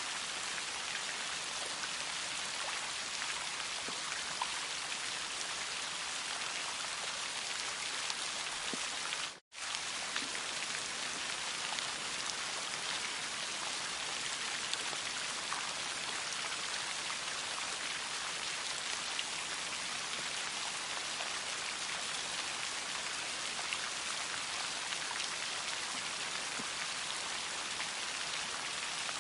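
Steady rain falling, an even hiss with scattered small drop ticks. The sound cuts out for a split second about nine and a half seconds in, then resumes unchanged.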